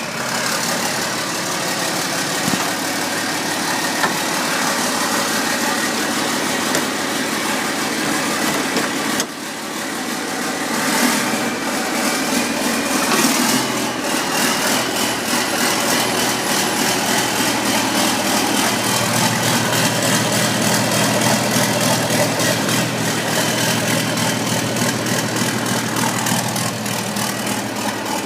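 A motor running steadily, with a short dip about nine seconds in and a lower, steadier hum setting in about two-thirds of the way through.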